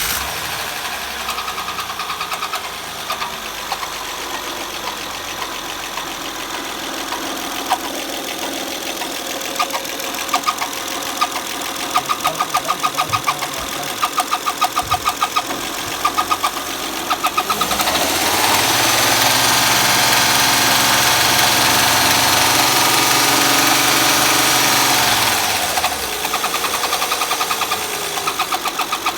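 Honda Accord engine idling with a rapid, rhythmic chirping, revved for several seconds in the middle and then let back down to idle, with the chirps returning. The chirp was traced to a damaged camshaft lobe.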